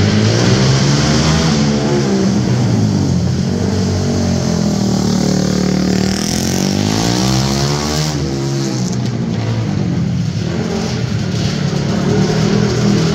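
Dirt-track motorcycle engine revving hard as it laps a dirt oval, its pitch repeatedly rising and falling as the rider accelerates and backs off for the turns. A long rise and fall in pitch between about four and eight seconds in marks the bike sweeping past close by.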